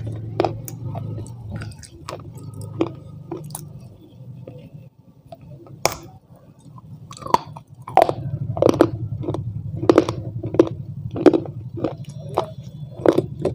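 Close-miked chewing and biting, wet and crunchy, over a steady low hum. It is quieter for a while in the middle, with one sharp bite-click, then turns to regular chews at about one and a half a second for the rest.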